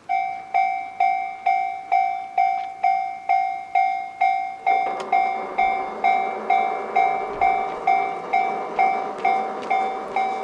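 Japanese railway level-crossing alarm starting up, ringing a clear, evenly repeating ding about twice a second as a train approaches. About halfway through, a steadier rumbling noise from the approaching train joins under the dings.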